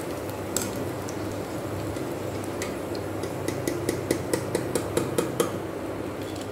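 Hot oil sizzling and bubbling in a frying pan as a wire skimmer scoops out fried okra, with metal clinks of the skimmer against the pan. The clinks come in a quick run of about five a second for a couple of seconds past the middle.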